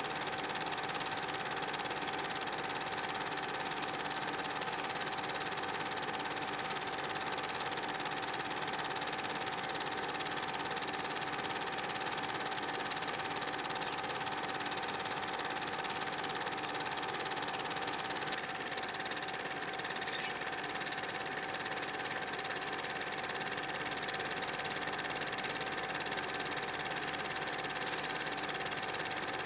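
Steady mechanical whirring of an 8mm film projector running, with a constant hum.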